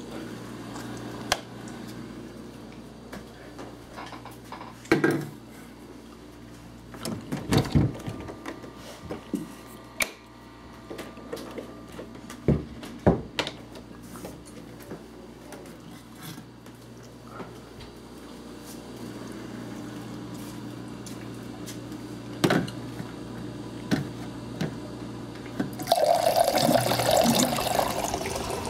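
Scattered knocks and clatters over a low steady hum, then a loud rushing noise for the last few seconds.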